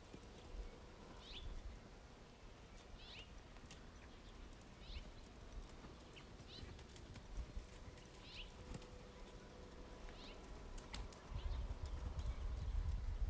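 A horse's hooves thudding softly in sand, louder near the end, while a small bird repeats a short high chirp about every two seconds.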